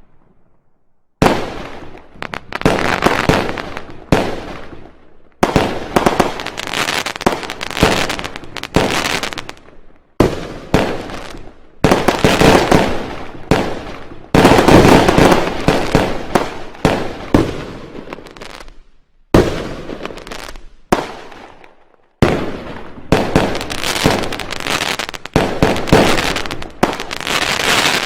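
Loud fireworks and firecrackers going off in rapid runs of sharp bangs, each run fading away before the next starts, with short pauses between. The bangs begin about a second in.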